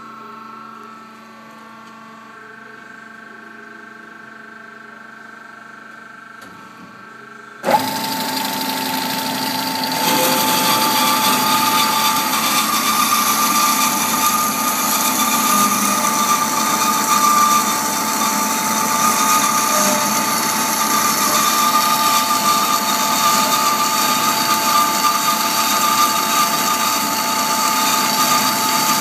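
Bomar Individual 510/330 GA horizontal metal-cutting bandsaw: a low hum at first, then the saw starts suddenly about eight seconds in with a steady whine, growing louder some two seconds later as the blade runs and cuts through solid metal round bar.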